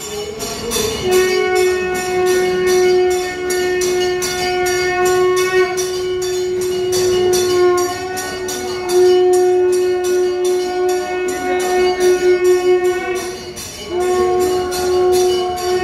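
Devotional music for the aarti: a long held, pitched tone that breaks off briefly twice, over a steady jingling beat of about two to three strikes a second.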